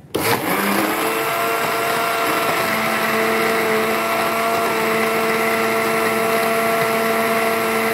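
Electric mixer-grinder (blender) switched on, its motor rising in pitch over the first second to full speed, then running at a steady whine as it blends a watery pineapple and cucumber juice.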